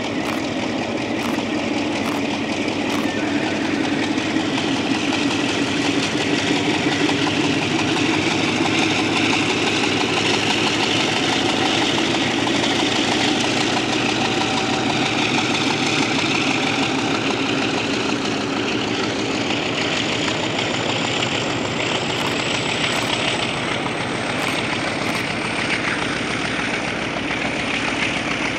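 Dongfeng 4 (DF4) diesel-electric locomotive's V16 diesel engine working hard as it hauls a freight train of tank wagons away from a station: a steady, loud engine drone, with a thin high whine rising slowly in the last third.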